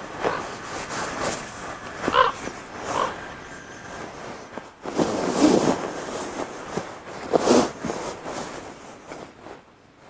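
Deer in a mixed herd calling: a few short calls, then two louder, longer calls about five and seven and a half seconds in.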